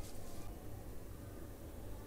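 Faint steady low hum with a light hiss: background room tone.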